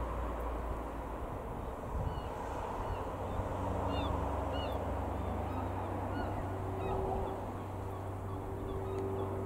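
Jabiru UL-450 light aircraft's single piston engine and propeller droning steadily overhead. Short, high bird calls repeat over it from about two seconds in until near the end.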